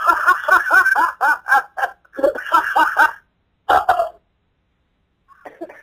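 A person laughing in a rapid run of short bursts for about three seconds, then one short burst and a faint one near the end, heard through a voice call's narrow-band audio.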